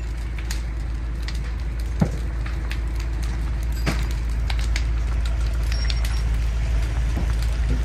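A house fire burning: a steady low rumble with scattered crackles and pops from the burning structure, and one sharper pop about two seconds in.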